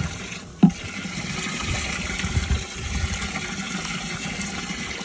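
Water running and sloshing in a boat's live well as a dip net and hand stir through it to scoop live shrimp, with one short sharp knock about two-thirds of a second in.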